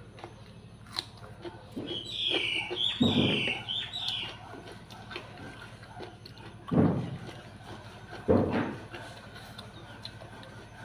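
Mouth sounds of someone eating rice and fish by hand: quiet chewing and small clicks, with three louder short mouth sounds a few seconds apart. A bird chirps in the background for about two seconds, starting about two seconds in.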